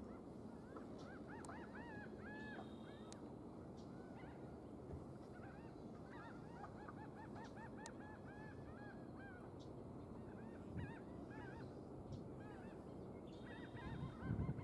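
A distant chorus of many birds giving short, repeated honking calls, overlapping, over a low background rumble, with a few louder low thumps near the end.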